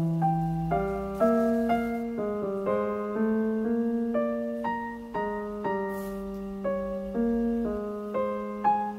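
Background piano music: a gentle melody of struck notes, about two a second, over sustained lower notes.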